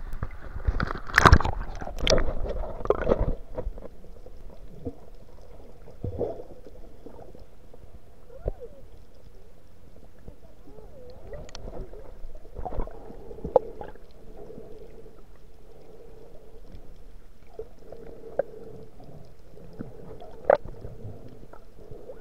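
Sea water splashing and knocking against an action camera's waterproof housing as it is dunked, loud for the first three or four seconds, then muffled underwater noise with occasional single knocks and clicks.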